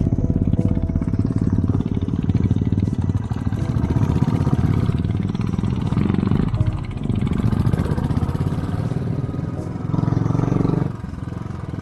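Motorcycle engine running at low speed under load, pulling up a steep, rocky dirt track. It stays steady, then drops in level briefly near the end.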